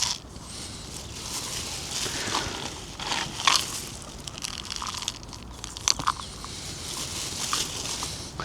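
Irregular crunching and crinkling handling noise, with scattered sharp clicks; the loudest come about three and a half and six seconds in.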